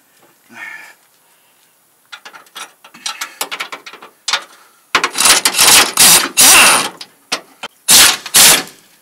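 Ratchet clicking quickly on a bumper bolt, then an air-powered ratchet running in loud bursts: one of about two seconds, then two short ones near the end.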